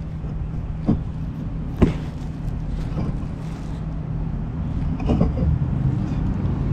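Knocks and light clatter of the plastic cooling-fan assembly being maneuvered up into place behind the radiator, a sharp knock about a second in, another near two seconds, and a short clatter near five seconds, over a steady low hum.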